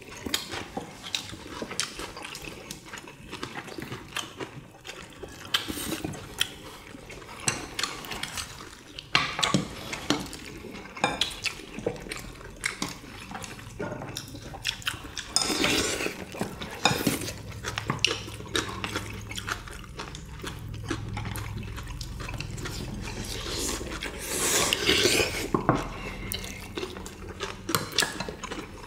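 Eating sounds at a meal table: spoons and chopsticks clinking against bowls and dishes, with wetter liquid sounds from the stew, busiest about halfway through and again near the end.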